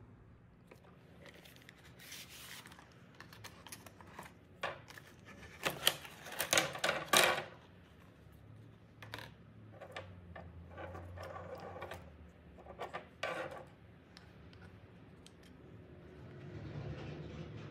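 Victorinox knives with plastic handles and their packaging being handled: irregular clicks, light clatter and scrapes as the knives are laid out on a wooden board and picked up again. The busiest stretch of clatter falls about five to seven seconds in, with shorter bits of it later.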